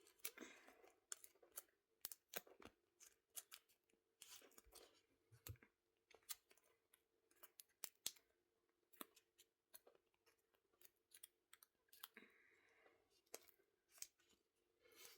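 Faint, scattered clicks and short rustles of hands working adhesive tape and paper at a table, with scissors snipping.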